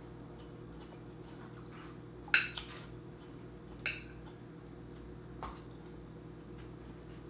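Metal spoon clinking against a glass plate as food is scooped up: a sharp clink about two seconds in, the loudest, with a smaller one right after, then two lighter clinks about a second and a half apart.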